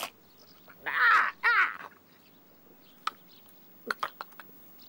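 A gull gives two harsh squawks about a second in, then a few light pecking taps follow, as it pecks at rotten wood for woodlice.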